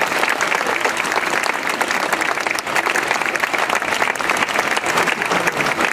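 Crowd applauding: many hands clapping in a steady, dense patter.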